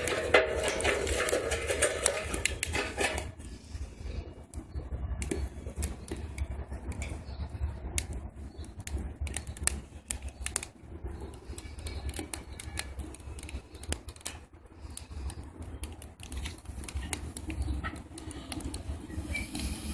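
Wood fire crackling inside a rocket stove, with irregular sharp snaps and pops over a low steady rumble. For the first three seconds it is louder, as sticks are pushed into the feed opening.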